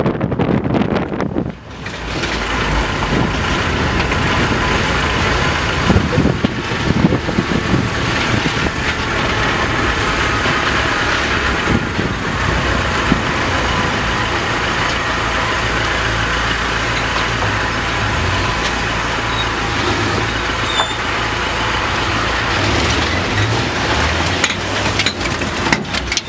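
Engine and road noise from inside a military vehicle driving along, steady and loud, with a few short knocks and rattles.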